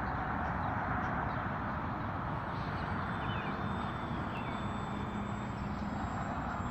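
Large airliner's jet engines passing on landing approach: a steady, even noise with a faint high whine in the middle.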